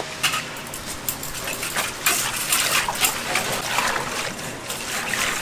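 Red plastic scoop dumping powder into water in a large stainless steel basin and stirring it, with repeated splashing and sloshing.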